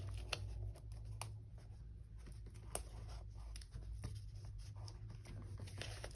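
Quiet desk work with pen and paper on a planner page: scattered small clicks and soft rustles, over a low steady hum.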